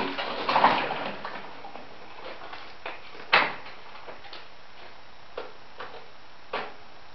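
Scattered knocks and clunks with some rustling in the first second, the loudest knock a bit past three seconds in and another near the end; no engine is running.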